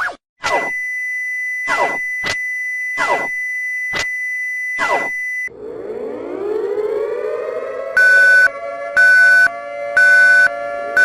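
Emergency alert alarm signals: a steady high tone broken by five quick falling sweeps. About five seconds in, a siren winds up to a steady wail, and from about eight seconds in a loud beep joins it, repeating once a second.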